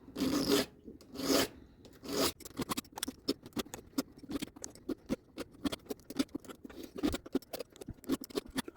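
Flat metal file scraping over a chainsaw chain's rakers (depth gauges) through a hardened-steel raker guide, taking them down during chain sharpening. Three longer push strokes come first, then a quick run of short scrapes and clicks.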